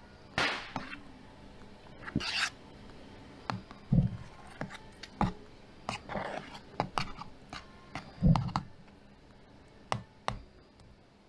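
A metal spoon scraping and tapping against a metal baking tin as sticky sago pearl mixture is spread and pressed flat. Irregular short scrapes and clicks, with a duller knock about four seconds in and another near eight seconds.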